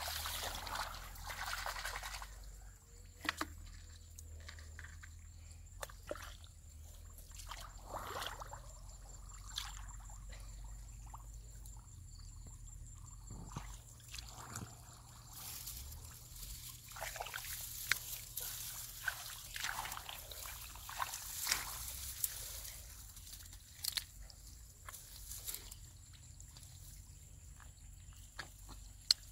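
Hands scooping and sloshing through shallow muddy water and wet mud, in irregular splashy bursts with scattered sharp clicks.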